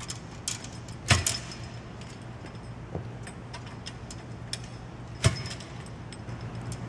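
Metal frame posts of a volleyball trainer knocking and clicking as they are worked into their telescoping uprights to line up the bolt holes: two sharp knocks, about a second in and about five seconds in, with lighter clinks between. A steady low hum runs underneath.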